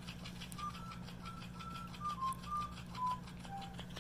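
Faint rapid clicking of a Boston terrier gnawing a chew bone. A simple melody of clean electronic beeps and a steady low hum run underneath.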